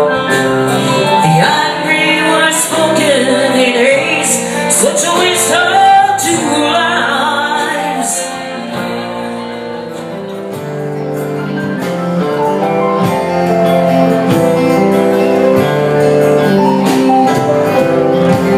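Live country band playing between sung lines: drums, acoustic and electric guitars, with a lead melody bending in pitch over steady chords and cymbals. It dips in loudness about ten seconds in, then builds back up.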